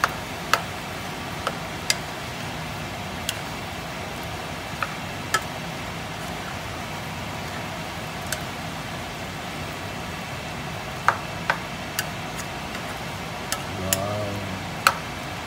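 Cubed chicken frying in a pan with sautéed ginger, garlic and onion while being stirred with a spoon: a steady sizzle, with sharp clicks of the spoon against the pan at irregular intervals.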